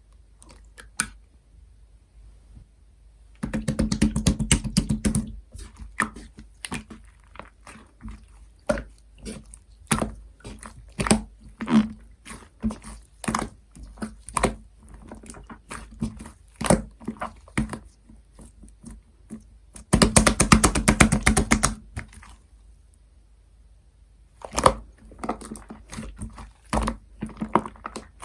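Clear slime mixed with shaving foam being squished and kneaded by hand: wet, sticky clicks and air-bubble pops, with two stretches of fast, dense crackling, about three seconds in and again near twenty seconds.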